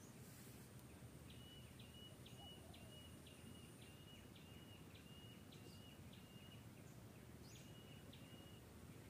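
Near silence with a faint background hum, over which a small bird repeats a short, high, even call about twice a second, a run of about ten, then pauses and calls twice more near the end.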